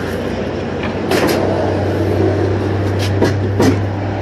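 Steady low hum of running machinery, with a few short knocks about a second in and twice near the end as a wooden plank ramp is handled on concrete steps.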